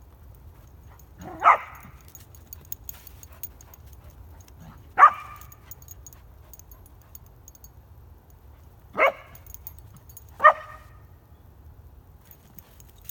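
Five-month-old Goldendoodle puppy barking four times in single short barks, spaced a few seconds apart with the last two about a second and a half apart, barking at a deer to get it to play.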